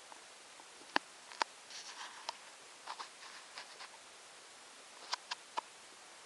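Two kittens play-fighting on a hard floor: scattered sharp taps and clicks of paws and claws, with short soft scratchy scuffles in between.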